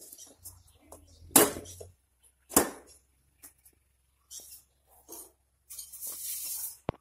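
A metal dhokla plate knocking against a metal steaming pot as it is lowered in: two loud clanks about a second apart, then lighter clicks and a short hiss near the end.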